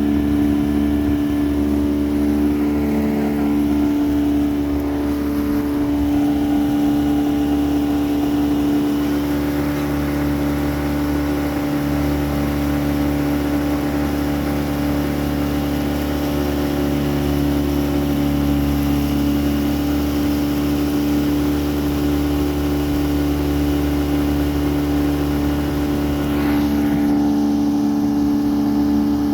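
Motorboat engine running at a steady speed, a constant drone with a firm pitch.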